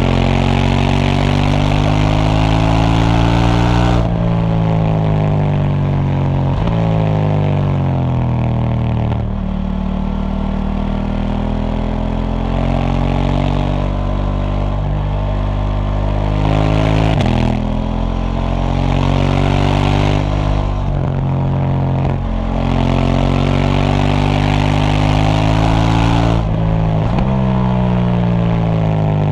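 KTM 790 Duke's parallel-twin engine with its stock exhaust, under way: the engine note climbs in pitch as it accelerates, then falls back sharply several times as the throttle is closed or a gear is changed, before pulling up again.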